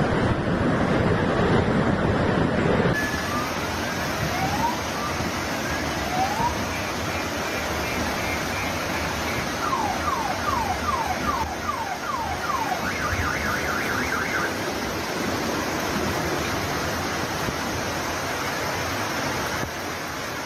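Muddy floodwater rushing through a street in a steady, noisy rush. In the middle, a car alarm sounds a quick run of repeated rising chirps, then a brief warbling pattern.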